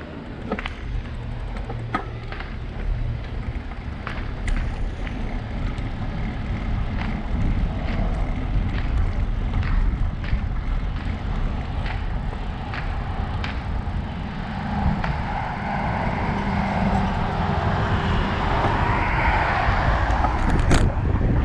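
Wind rumbling on the microphone and tyre noise from a bicycle riding over rough asphalt, with scattered sharp clicks and rattles from the bike. Over the last several seconds the noise of a passing car swells and fades.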